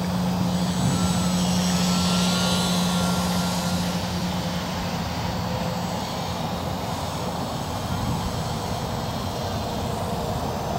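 Small electric RC aerobatic plane (E-flite UMX Yak 54) flying overhead: its motor and propeller whine, with the pitch bending as it manoeuvres. A steady noisy hiss runs throughout, and a low hum fades out about halfway.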